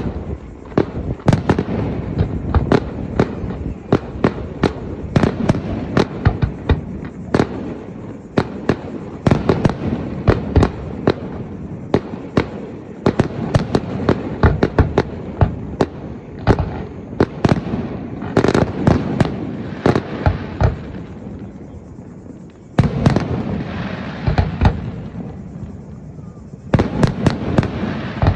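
Fireworks display: aerial shells bursting one after another in a rapid, irregular string of sharp bangs over a continuous low rumble. Two louder, denser volleys come in the last third.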